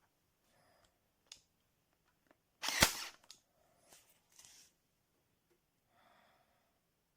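A Powertough 20V cordless staple gun and brad nailer firing once, a single sharp shot just under three seconds in. A few faint clicks of the tool being handled come before and after it.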